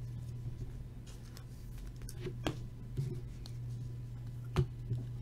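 Trading cards being handled in the hands, with a few short taps and clicks as they are shifted and squared up, over a steady low hum; the sharpest tap comes near the end.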